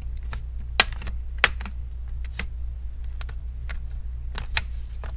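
Clips of a Dell Inspiron 3593's clip-on LCD bezel popping loose as a pry tool works between bezel and screen: a series of sharp clicks like cracking knuckles, the strongest about a second in, again half a second later, and near the end. A steady low hum runs underneath.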